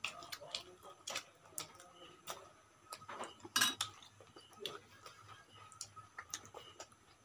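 People eating roti and chicken curry by hand at a table: scattered small clicks and taps of mouth sounds and bread tearing, with one louder click a little past halfway.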